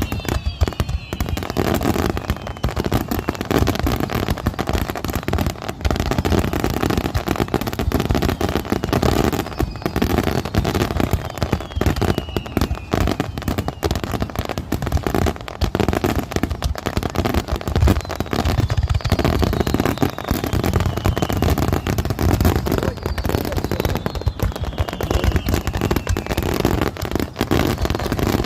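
Fireworks display barrage: rapid, continuous bangs and crackling bursts with no pause, and every several seconds a whistle falling in pitch.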